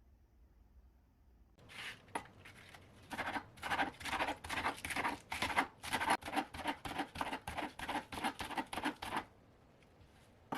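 Quick rhythmic scratching or scraping strokes, about three to four a second, starting about a second and a half in and stopping abruptly near the end.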